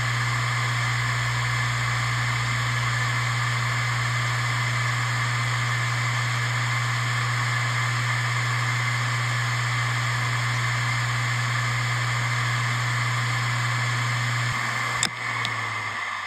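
Hitachi Deskstar T7K500 (HDT725025VLA380) 7,200 rpm hard drive spinning at full speed, a drive in perfect health, with a steady hum and hiss. Near the end a sharp click is heard, and the sound then begins to fade as the drive spins down.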